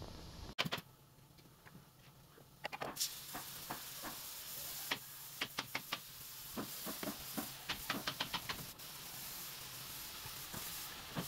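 Workshop tool noise: a steady hiss with sharp clicks and taps in quick, irregular clusters, setting in a few seconds in after a short quieter stretch.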